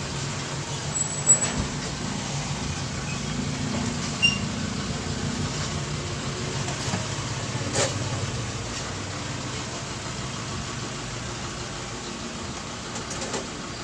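A steady low mechanical hum, like a motor running, easing off a little near the end, with a few light clicks from handling the circuit board.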